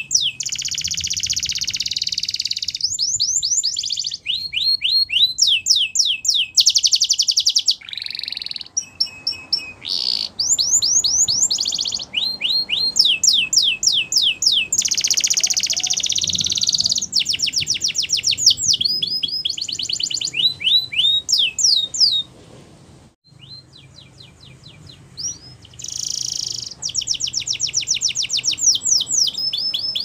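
White domestic canary singing a long song of fast repeated trills, runs of quick falling notes and buzzing rolls, switching pattern every second or two, with a quieter gap of about three seconds a little past two-thirds through.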